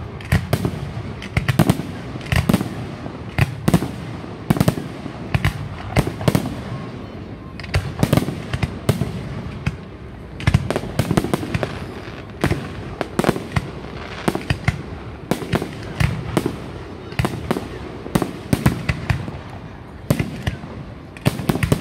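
Aerial firework shells bursting in a rapid, irregular series of sharp bangs, one to three a second.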